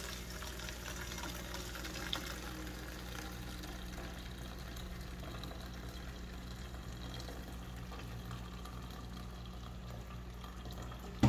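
Boiled sweetened coffee being poured through a cloth coffee strainer into a bowl, a steady trickle of liquid, with one small click about two seconds in.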